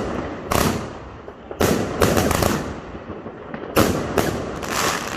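Lesli Vegas Volcano firework fountains spurting in repeated bursts of crackling, about seven in all, each starting sharply and fading within half a second.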